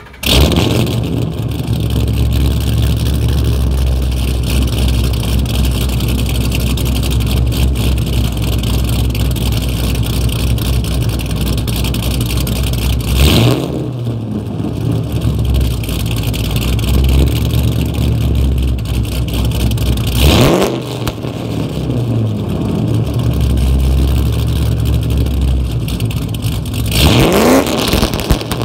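A 2008 Ford Mustang Bullitt's 4.6-litre V8 is running through long-tube headers, an X-pipe, muffler-delete straight pipes and Hot Rod cams. It starts up and settles into an idle. Three quick revs are blipped: about halfway, about two thirds through, and near the end.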